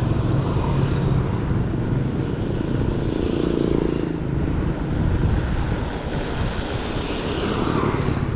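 Bicycle tyres rolling on the road, a steady low rumble.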